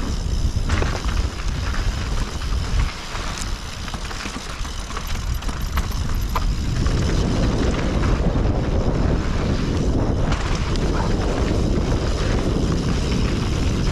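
Wind rushing over the camera microphone as a mountain bike rolls down a trail, with scattered clicks and rattles. The rush grows louder and fuller about seven seconds in.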